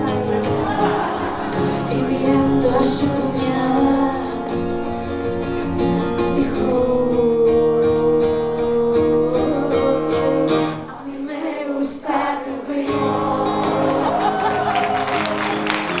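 A woman singing live over two acoustic guitars, holding one long note partway through. The music drops away briefly about eleven seconds in, then picks up again.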